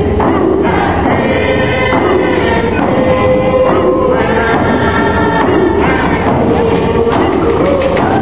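A group of voices singing a Nisga'a dance song together, steady and continuous, with held notes that shift in pitch every second or so.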